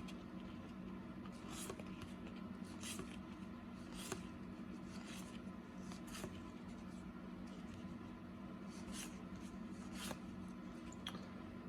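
Faint, soft papery swishes of cardboard trading cards being slid and flipped by hand, roughly one every second or so, over a steady low hum.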